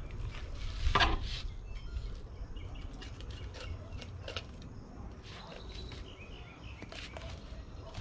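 Fillet knife cutting along a tilefish's backbone and scraping the table during filleting: short scrapes and clicks, with one louder rasp about a second in. Birds chirp faintly over a low wind rumble.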